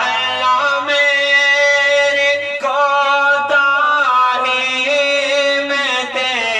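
A man singing an Urdu naat, a devotional song in praise of the Prophet, unaccompanied, with long held notes that waver into ornamented turns.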